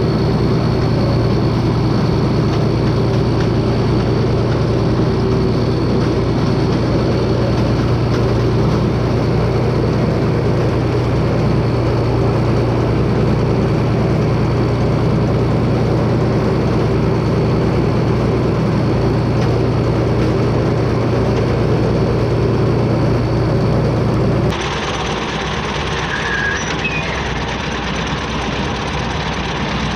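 Tractor running steadily while pulling a New Holland 488 haybine (mower-conditioner) cutting hay: a steady engine drone with a thin high whine. About 25 seconds in the sound cuts abruptly to a quieter, higher-pitched running of the haybine heard close up, with much less engine drone.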